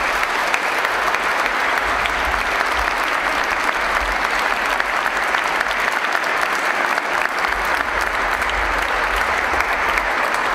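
Congregation applauding in a large church: many people clapping steadily.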